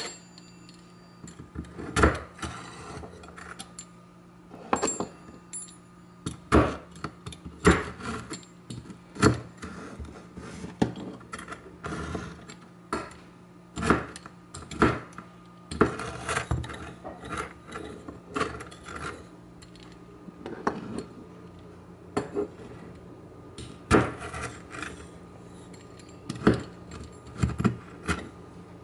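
Steel pizza cutter wheel chopping and pressing a maple leaf cookie against a wooden cutting board: irregular sharp knocks of the blade hitting the wood, with the cookie cracking and crunching.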